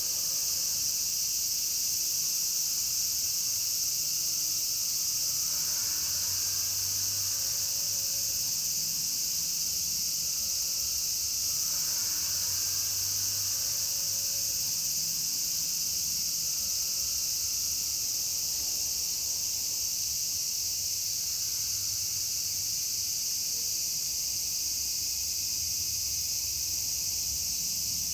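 A continuous chorus of summer insects: a steady, unbroken high-pitched drone.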